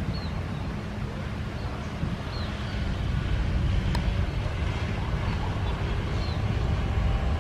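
A motor scooter and cars passing close by on a road, a steady low rumble with wind buffeting the microphone. A few faint high chirps sound over it.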